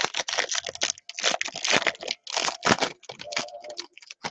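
Foil wrapper of a 2019 Topps Inception trading card pack being torn open and crinkled by hand: a run of irregular crackling rustles.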